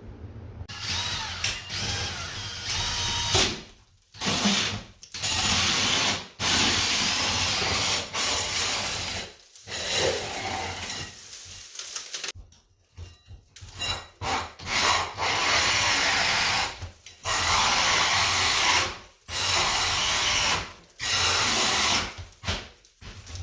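Power drill with a 4¼-inch hole saw cutting a hole in the ceiling, run in repeated bursts of a second or two that stop and start.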